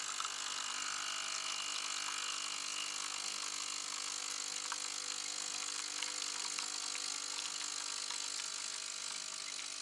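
Pump of a KitchenAid Artisan 5KES2102 espresso machine running steadily at 15 bar while a shot pours: an even hum with a hiss over it, easing slightly near the end.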